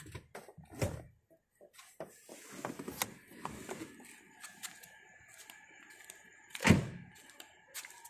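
Car gear lever being moved into reverse with knocks and handling clatter, then a loud car door thunk about seven seconds in, followed by a few lighter clicks.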